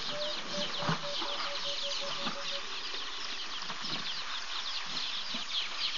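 Dense chorus of high chirping from birds and insects, with a low note repeated about four times a second that stops about two and a half seconds in.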